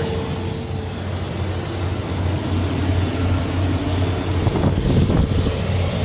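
GM Vortec 8100 8.1-litre V8 idling steadily, with only a light lifter tick and none of the heavy slapping knock, after new platinum NGK spark plugs gapped to .045.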